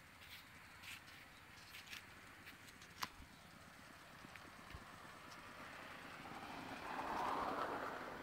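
Quiet outdoor background with a few faint clicks, then a vehicle passing, swelling and fading over about two seconds near the end.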